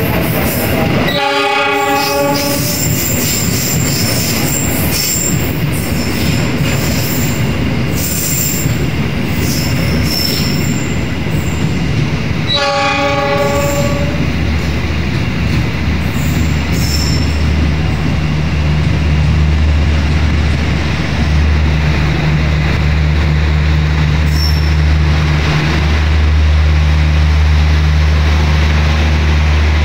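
KAI Taksaka new-generation passenger train rolling through a station, with wheels squealing and rattling on the rails. The horn sounds two short blasts, about a second in and again about twelve seconds in. From about fourteen seconds a steady low engine hum rises under the rumble.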